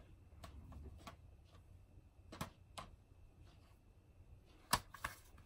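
DVD cases being handled: a few faint clicks and light knocks of plastic, the strongest just under five seconds in.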